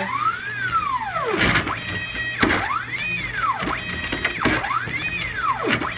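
AmmoBot motor drive cycling a progressive reloading press through .45 ACP cases. A motor whine rises and falls in pitch with each stroke, about once a second, with a sharp click or clatter between strokes.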